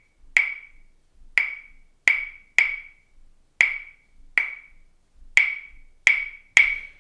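Pair of wooden claves struck together, playing the rumba clave in its 3-2 pattern: sharp, bright, ringing clicks in the uneven five-stroke rhythm, nine strokes, about two rounds of the pattern.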